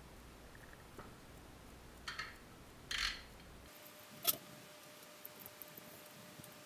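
Faint handling sounds of a plastic-wrapped casting mould block being worked with a utility knife: short rustles about two and three seconds in, a sharp click just after four seconds, then scattered light ticks.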